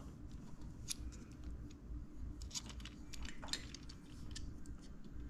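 Faint clicks and light metal taps of a motorcycle rearset's brake lever and base plate being handled and fitted together by hand: one sharp click about a second in, then a short cluster of ticks a little past halfway.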